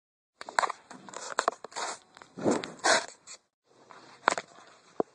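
A horse moving in a barn: irregular sharp hoof knocks and scraping on the floor over rustling close to the microphone. It starts abruptly about half a second in, after digital silence.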